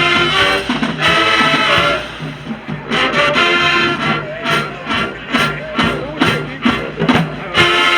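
Marching band playing: brass chords over drums, breaking in the second half into a run of separate drum hits, then the full band comes back in with a loud held brass chord near the end.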